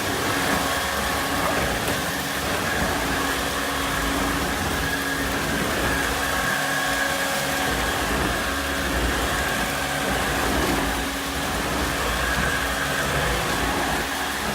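Volta Electronic 507 vacuum cleaner running steadily: an even rush of air with a steady motor whine.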